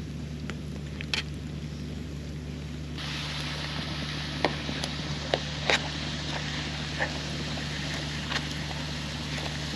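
Potato slices sizzling in oil in a pan over a campfire, louder from about three seconds in, with several sharp clicks of a knife blade tapping and scraping the pan as the slices are turned. A steady low generator hum runs underneath.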